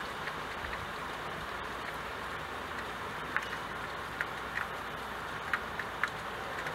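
Steady hiss of falling rain, with a few short sharp drop taps standing out in the second half.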